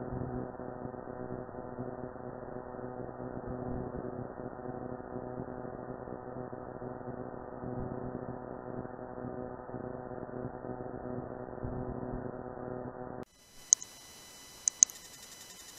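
A steady, muffled electronic hum made of several even tones, which stops abruptly about thirteen seconds in. After it comes a faint hiss with a few sharp, high clicks, some in close pairs; the loudest click comes just after the hum stops.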